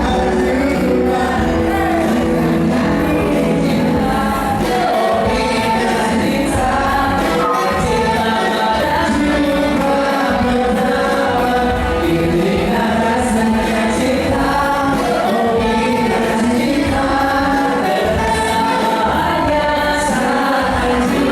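A song played continuously at a steady level, with several voices singing over musical accompaniment.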